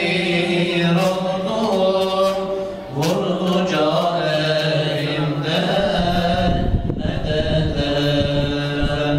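A man's voice chanting a Turkish ilahi (religious hymn) unaccompanied, in long, wavering held notes, with a short breath about three seconds in.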